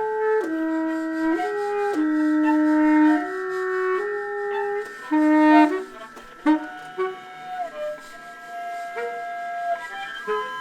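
Viola and baritone saxophone playing contemporary concert music: a line of short held notes stepping up and down over steady high sustained tones. About six seconds in it turns sparser, with sharp separate attacks.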